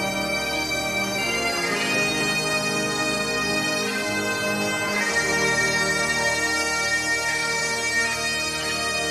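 Bagpipes playing a slow melody over a steady drone.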